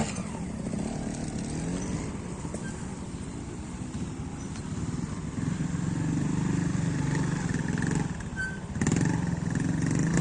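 Trials motorcycle engine running and being blipped on the throttle as the rider works through a section, growing louder about halfway through, then dropping briefly before a sharp rev burst near the end.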